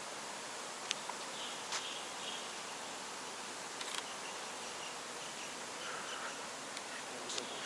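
Outdoor ambience in a garden: a steady high hiss with a few faint chirps and occasional light clicks.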